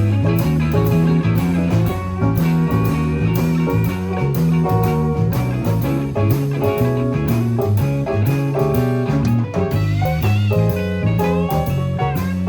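A band playing an instrumental passage: guitar, piano and bass over a drum kit with a steady beat. From about ten seconds in, a high, wavering melodic line comes in on top.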